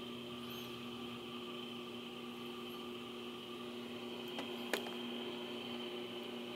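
Steady hum made of several constant tones over a light hiss, with two sharp clicks close together about four and a half seconds in, the second louder.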